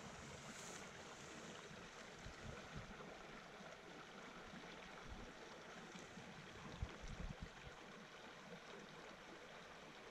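Shallow mountain creek running faintly over cobbles, with a few soft low bumps about seven seconds in.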